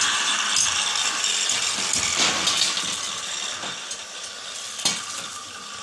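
Arc welding on the cage's steel frame: a steady crackling hiss that slowly fades, with a few sharp clicks, the sharpest just before the end.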